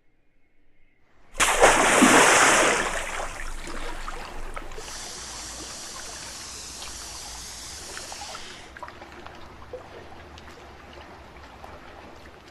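Water sound effect: a sudden loud splash about a second in, then running, trickling water that slowly fades.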